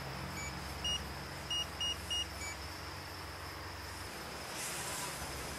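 Six short electronic beeps within about two seconds, a lower-pitched one first and last with four higher ones between, over a steady low hum.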